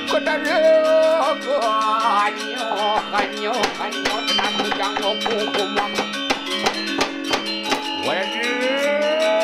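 Balinese gender wayang music: bronze gender metallophones ringing in quick, dense strokes. A man's voice glides up and down in pitch over the instruments during the first two seconds and again near the end.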